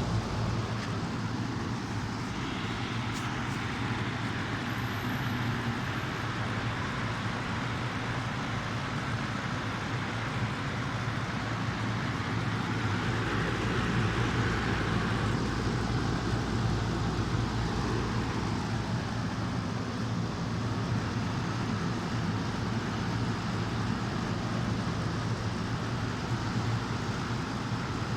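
Lennox air conditioner running steadily: an even rush of air over a low, constant hum.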